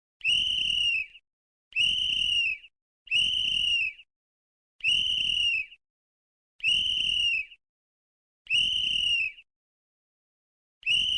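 A whistle blown in short single blasts of about a second each, seven in all at uneven intervals, each a high steady tone that sags slightly in pitch as it ends.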